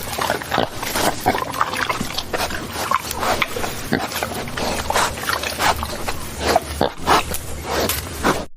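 Sound effect of a flock of birds clamouring angrily, a dense run of squawks and cries with many short sharp calls.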